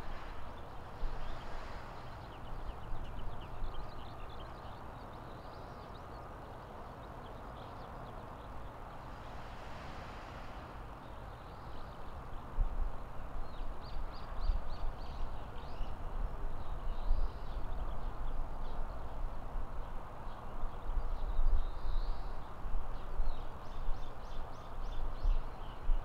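Outdoor nature ambience: small birds calling in short, rapid chirping runs over a steady background hiss, with a low rumble that comes and goes.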